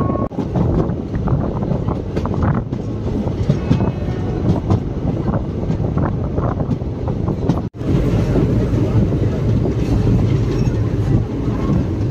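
Passenger express train running at speed, its coach wheels clattering over the rails with a steady rush of wind past the open doorway. The sound briefly cuts out about eight seconds in.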